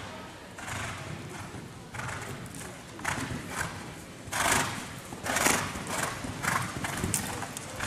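A horse's hoofbeats cantering on soft arena footing, growing louder as it passes close about four to five seconds in.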